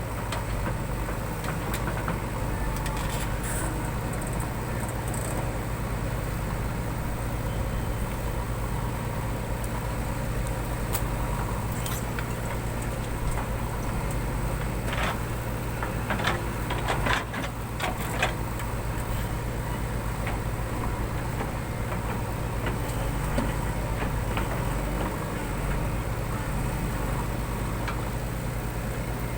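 JCB 3DX backhoe loader's diesel engine running steadily, with a few sharp knocks from the machine around the middle.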